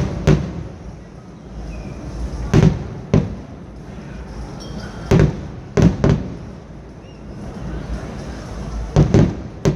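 Fireworks bursting overhead: about nine sharp bangs at uneven intervals, several in quick pairs, each with an echoing tail, over a low rumble.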